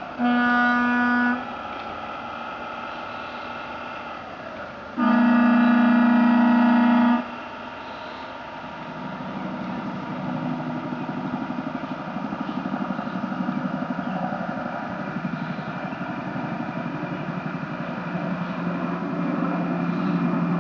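Horn of an RC model push boat sounding twice: a short blast, then a louder one of about two seconds. Then the boat's engine runs steadily with a fast, even pulsing, growing louder from about eight seconds in.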